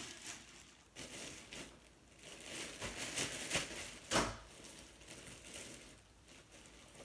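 Hands working deep conditioner and oil through a section of damp curly hair: uneven rustling and squishing, with one sharper crackle about four seconds in.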